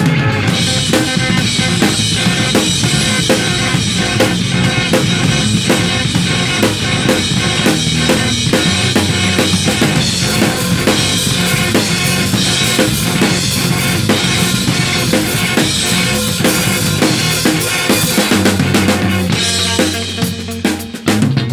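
Acoustic-electric bass guitar played fast and percussively: the right hand strikes the strings in a dense run of sharp hits over shifting low notes. The loudness dips briefly near the end.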